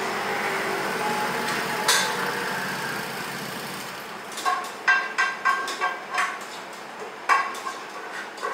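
A scooter engine running at the open shopfront, swelling and then fading, followed about halfway through by a quick run of sharp, ringing clinks of dishes and bowls being handled.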